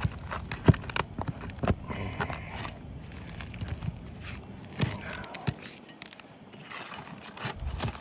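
Pry bar scraping under asphalt shingles and knocking against the nails as they are worked out, with a few sharp metallic clicks and knocks among the scraping.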